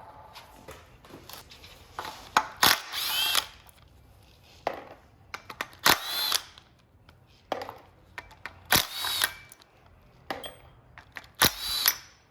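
A power tool running in short bursts, about four times a few seconds apart, each with clicks and a motor whine that rises and falls in pitch.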